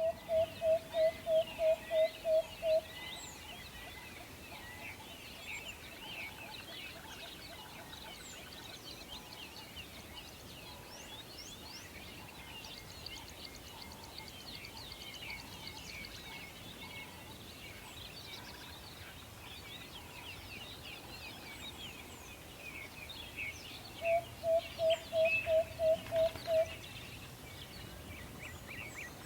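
Forest ambience with many birds chirping and singing throughout over a soft steady background. Twice, at the start and again near the end, one bird gives a run of about ten low, evenly spaced notes at about four a second, louder than the rest.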